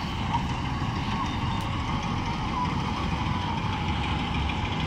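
Combine harvester running while cutting wheat, a steady mechanical rumble with no breaks.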